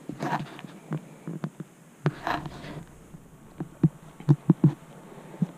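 Footsteps climbing a stairwell at a hurried pace: irregular thuds on the stair treads that come quicker together about two-thirds of the way in, with two short hissy bursts before that.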